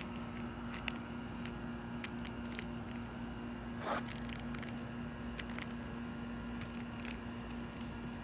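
Silicone caulk being applied and worked by hand: scattered light clicks and handling noises, with a short squishy sound about four seconds in, over a steady electrical hum.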